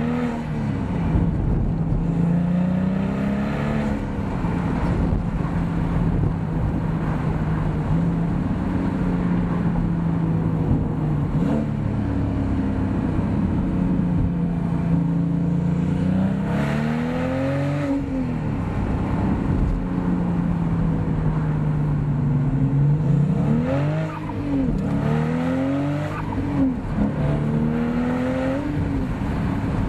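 Porsche 997.2 Turbo's 3.8-litre twin-turbo flat-six, breathing through a Fabspeed Maxflo muffler bypass X-pipe exhaust with the bypass valves open, heard from the open-top car while driving. The engine note climbs repeatedly under acceleration and holds steady at cruise in between.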